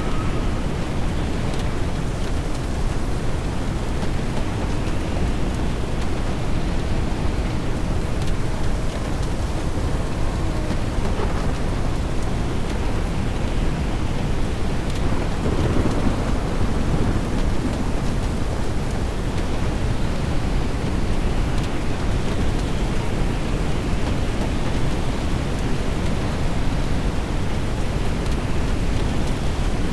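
Severe-storm noise: a steady rush of wind and rain, strongest in the low end.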